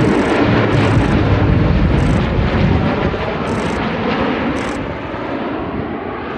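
Aircraft flying low past, its engine noise loud and steady, then easing off over the last couple of seconds.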